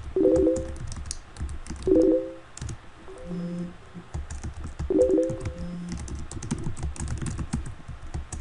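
Computer keyboard typing: a quick, uneven run of key clicks as a short sentence is typed. About five brief low tones, the loudest sounds here, come in over the clicks every second or two.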